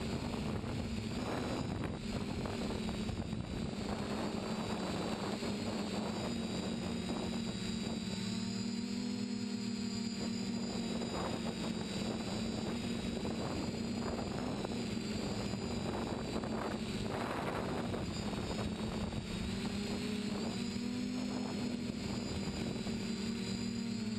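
TBS Discovery quadcopter's brushless motors and propellers humming and whining in flight, the pitch rising and dipping slightly with the throttle, heard from the onboard camera with gusts of wind noise on the microphone.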